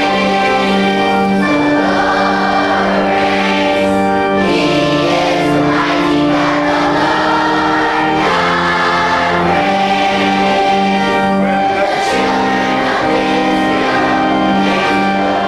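A congregation singing a worship song together with instrumental backing, in long held notes at a steady pace.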